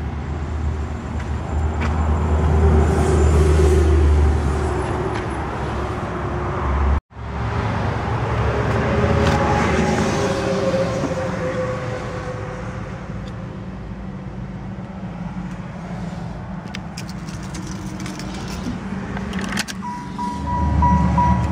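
The 1994 Cadillac Fleetwood Brougham's 5.7-litre LT1 V8 idling steadily, with a low, even hum. The sound cuts out briefly about a third of the way in. A steady warning-chime tone comes in near the end.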